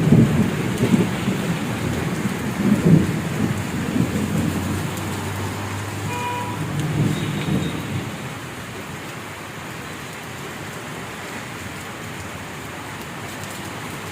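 Heavy rain falling steadily, with low rumbling through the first half that dies away about eight seconds in.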